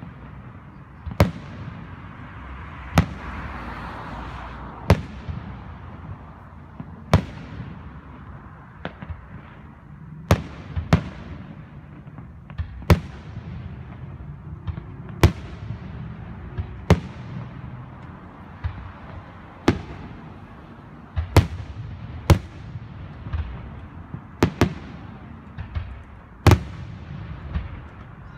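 Aerial fireworks shells bursting, a sharp bang every second or two, each one trailing off in an echo, over a steady low rumble.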